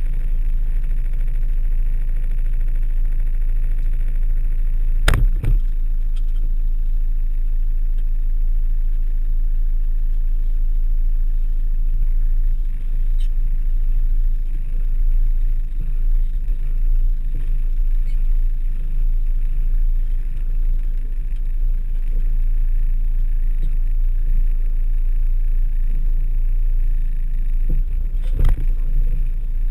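Volkswagen T3 Syncro van's engine running steadily at low revs as it crawls offroad, heard from inside the cab. A sharp knock sounds about five seconds in and another near the end.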